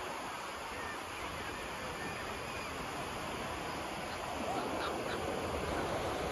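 Busy seaside beach ambience: a steady wash of surf and wind with distant voices of beachgoers and a few gull calls. It gets a little louder about four and a half seconds in.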